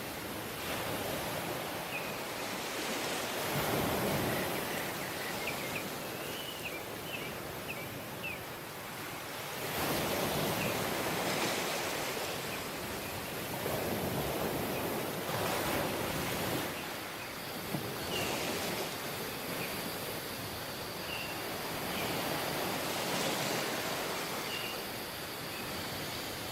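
Surf washing onto a tropical beach, swelling and falling back every few seconds, with short high chirps scattered over it.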